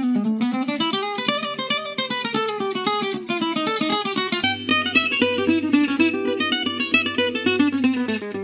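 Background music: fast acoustic guitar picking in a flamenco style, with quick runs of plucked notes. A low bass note comes in about halfway through.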